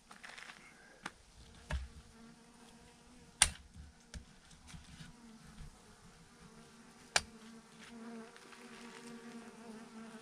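Swarm of bees clustered in a clump on a branch, buzzing in a steady hum that grows slightly louder near the end. A few sharp clicks cut through it, the loudest about three and a half and seven seconds in.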